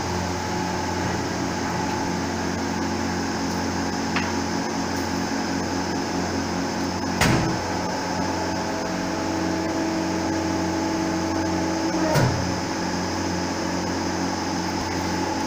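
Hydraulic pellet press's pump motor running with a steady hum. About seven seconds in there is a sharp clunk, then a higher whine joins for about four seconds and ends with a second clunk and a quick downward sweep.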